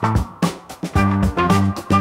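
Background music with a steady beat and a bass line, thinning out briefly in the first half.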